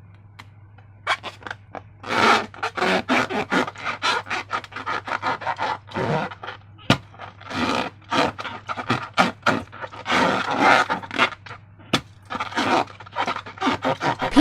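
Slime and rubber balloons being handled: rapid, irregular scraping and crackling rubs that start about a second in, over a steady low hum.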